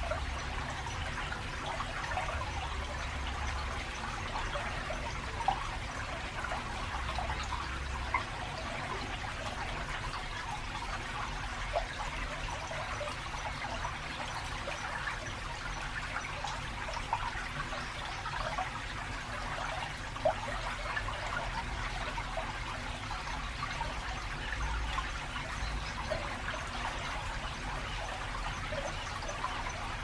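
Shallow stream trickling and burbling over rocks between concrete channel walls, with a few brief louder plinks. A low rumble of road traffic from a nearby bridge comes and goes underneath.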